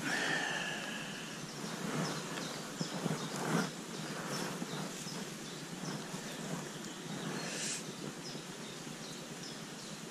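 Handling noise as a pike is unhooked in a landing net on grass: jacket fabric rustling and the net shifting, with scattered soft clicks over a steady background hiss.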